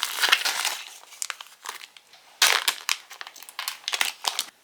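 Crinkly plastic film or wrapping being handled and peeled, in irregular crackling bursts.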